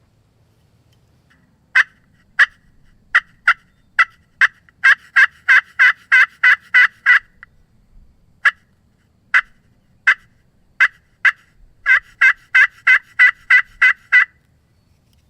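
Hen-turkey yelps: two runs of short, sharp calls, each starting slow and quickening to about three a second.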